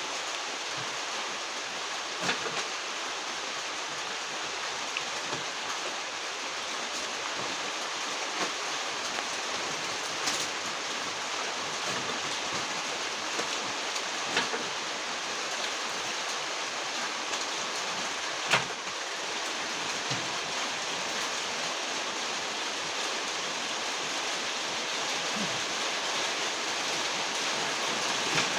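Very heavy rain falling: a steady, dense hiss, with a few sharp taps scattered through it, the loudest about two-thirds of the way through.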